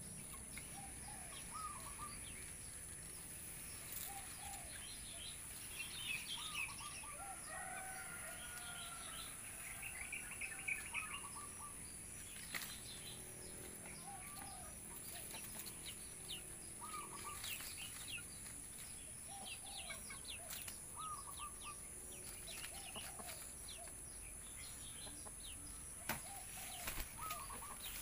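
Faint outdoor birdsong: short chirps and calls from several birds, scattered irregularly, over a steady high-pitched whine, with a few sharp clicks now and then.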